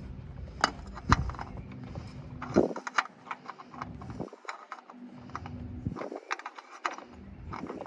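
Scattered light clicks and clinks of a new spin-on oil filter and tools being handled under a car, over a low hum that drops out a few times.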